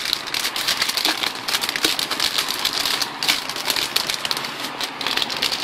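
Metallized plastic anti-static bag crinkling as hands handle it: a dense, continuous run of crackles and rustles.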